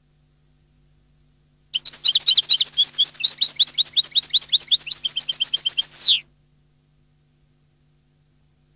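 European goldfinch singing one song phrase of about four seconds, starting about two seconds in: a fast run of twittering, tinkling notes that quickens into a rapid trill and ends on a falling note.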